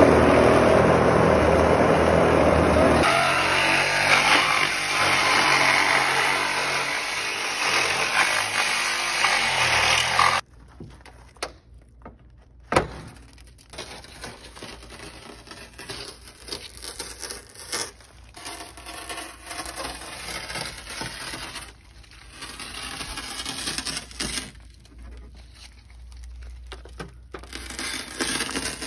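Cordless power saw cutting through the steel roof of a Honda Civic, running loud and steady for about ten seconds, then cutting off suddenly. After that come quieter irregular scraping and crunching of shattered tempered window glass.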